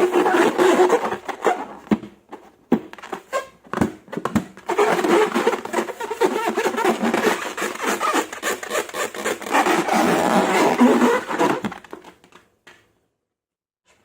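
Slime being stirred and squished, a dense crackling, sticky sound with small irregular clicks that stops about twelve seconds in.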